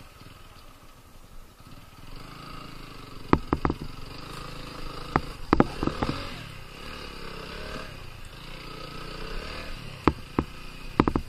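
Motorcycle engine running at low revs, with several sharp clicks and knocks scattered through it.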